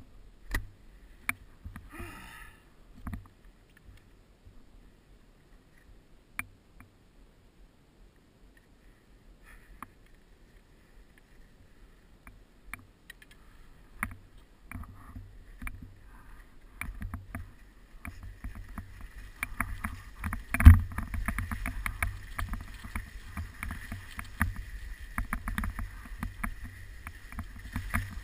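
Skis sliding and scraping over snow. There are a few sharp knocks and clicks in the first few seconds, then it is quiet, and from about halfway the scraping comes in steadily and grows louder. There is one loud thump about two-thirds of the way through.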